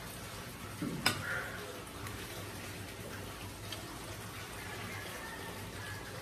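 A metal spoon clinks sharply once against a plate about a second in, over a steady background hiss with a faint low hum.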